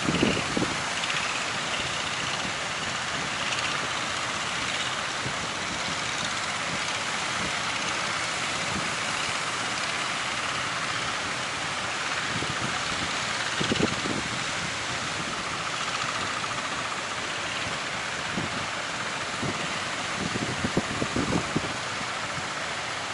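Steady rushing noise of ocean surf and wind, with a few brief low thumps of wind buffeting the microphone, several of them close together near the end.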